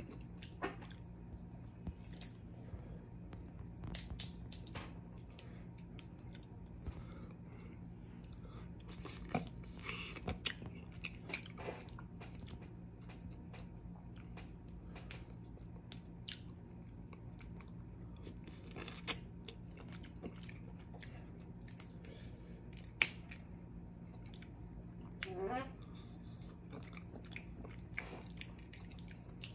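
Close-up eating: chewing with scattered sharp cracks and clicks from the shells of snow crab legs being broken open and eaten.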